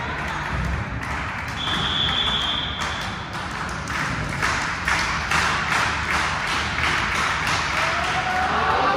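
A referee's whistle blows once, a steady high tone of about a second and a half. It is followed by a run of rapid claps over scattered voices.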